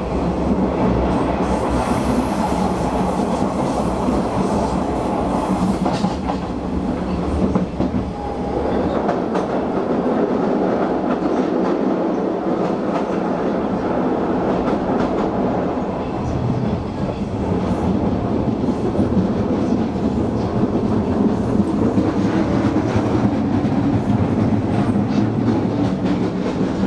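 Hanshin Railway electric train running on the rails, its wheels clattering over the rail joints.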